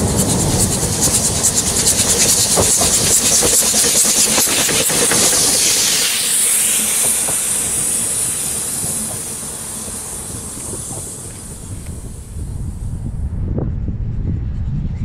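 Ffestiniog Railway narrow-gauge steam locomotive and train passing close by, wheels clicking over the rail joints amid a loud steam hiss. After about six seconds the clicking stops and a high hiss carries on, fading away about 13 seconds in, with a low rumble near the end.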